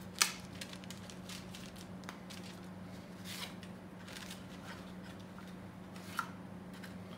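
Handling of a wooden cigar box: a sharp click about a quarter-second in, then light rustles and small wooden knocks as the box lid and its cedar insert are moved, with another small click near the end. A steady low hum runs underneath.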